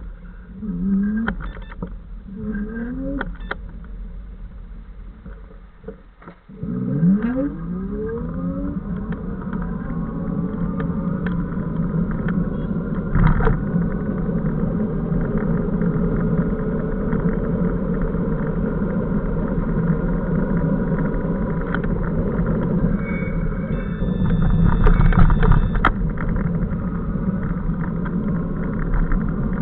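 Electric bicycle's 500 W motor whining. It rises in pitch in short spurts during the first few seconds, then in one long rising whine about six seconds in as the bike pulls away. It then runs as a steady whine over road and wind noise.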